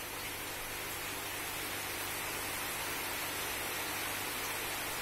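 Steady hissing noise, like rushing or splashing water, over a faint low hum, growing slightly louder.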